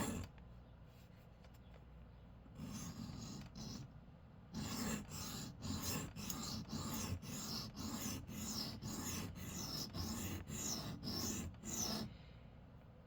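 Civivi Vision pocket knife blade being drawn across a 325-grit sharpening stone to re-sharpen a dulled edge. There are a few scraping strokes, then a steady run of about two strokes a second that stops about a second before the end.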